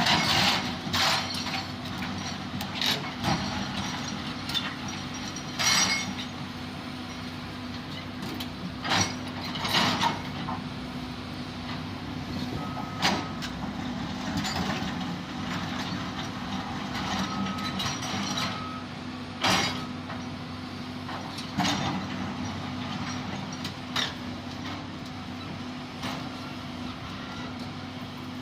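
Heavy earthmoving machine's engine running steadily, with loud clanks and knocks at irregular intervals of a few seconds.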